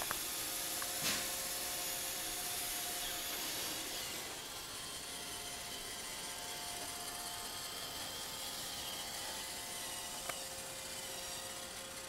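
Roomba robot vacuum running: a steady whir of its motor and brushes with a thin whine, a little quieter from about four seconds in, with a short click about a second in and another near ten seconds.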